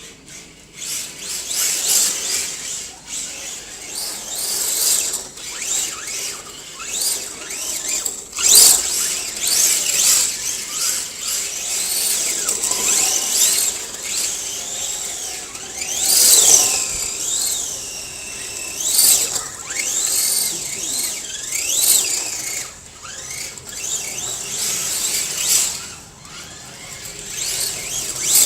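Radio-controlled drift car sliding, with repeated high squeals whose pitch slides up and down in bursts.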